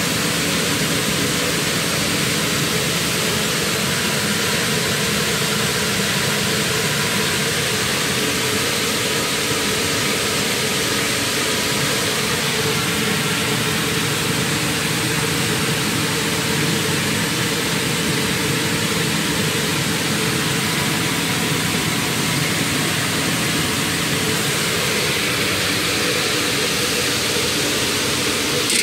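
Steady industrial machine noise: an even, hissing drone with a constant hum in it, from running plant equipment around the inverter-driven gypsum filter conveyor's electrical cabinet.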